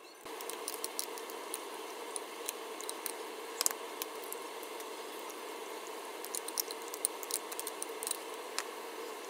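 Metal tongs clicking against a glass mixing bowl and wet squishing as raw chicken strips are turned in marinade, over a steady background hum.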